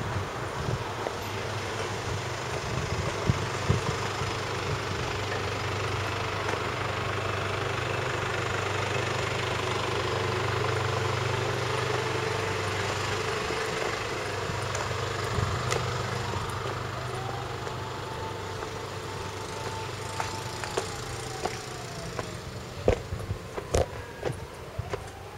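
Motor vehicle engine running with a steady low hum that swells over several seconds and then slowly fades. Near the end a thin steady tone comes in, with a few sharp clicks.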